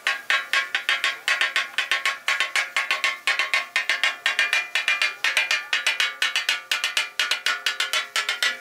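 Metal spatula blade striking a flat iron griddle in a fast, steady rhythm, about six ringing clangs a second, as chicken and vegetables are chopped on the hot surface.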